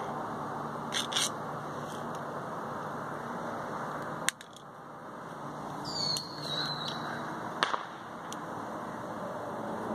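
Distant firework pops: a sharp bang about four seconds in and another about three seconds later, with fainter cracks early on. Underneath is a steady hiss of traffic.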